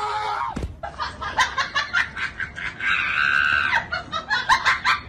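People laughing and shouting in excitement in short bursts, with one held high shout or scream about three seconds in.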